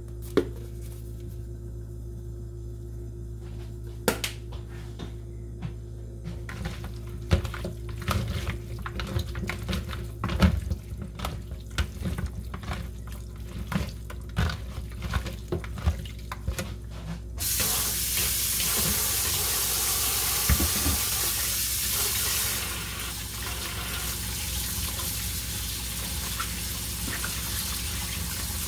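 Hands moving raw chicken wings about in a plastic colander in a stainless steel sink, giving scattered knocks and clicks, then about two-thirds of the way in the tap comes on and water runs steadily over the wings in the colander. A low steady hum lies underneath throughout.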